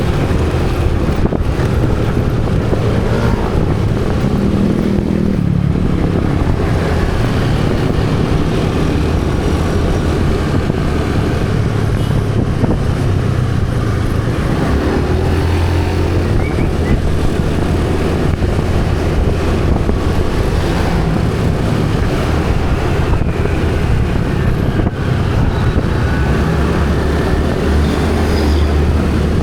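Motorcycle engine running while riding, its pitch rising and falling with the throttle, over steady wind and road noise.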